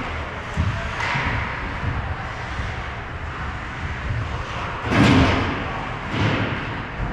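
Ice hockey game sounds: a steady din from the ice, with a few thuds and knocks. The loudest comes about five seconds in and another just after six seconds.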